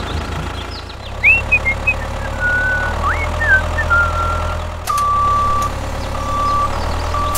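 Heavy truck engine running with a steady low hum, a few rising whistled chirps in the first half. About five seconds in, a steady high electronic beep sounds three times, the first one long.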